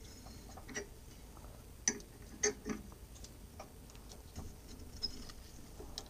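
Expanding reamer being turned by hand in the bore of a hand wheel, cutting the hole open. It gives quiet, irregular clicks and ticks, about eight of them, spaced unevenly as the wrench is worked.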